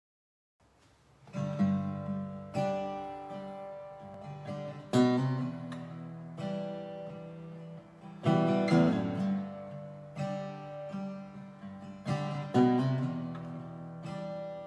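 Acoustic guitar playing a song's introduction: chords struck every second or two and left to ring out, starting about a second in.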